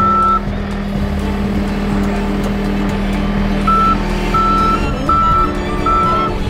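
Skid steer loader's engine running steadily while its reversing alarm beeps as the machine backs up. There is one beep at the start, a pause of about three seconds, then four more beeps about three-quarters of a second apart.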